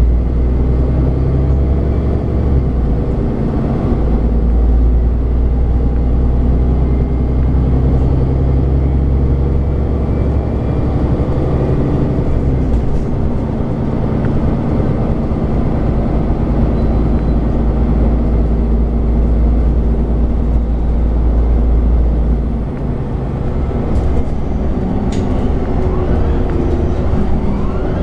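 MAN Lion's City 12C city bus's engine running under way, a steady low drone with a Voith automatic gearbox. About three-quarters of the way through the drone eases off, and a few short rattles or clicks follow near the end.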